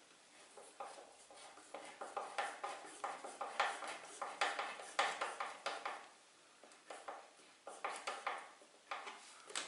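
Screwdriver tightening the screw that fastens a moped's plastic side cover, making faint clusters of light metallic clicks and scrapes.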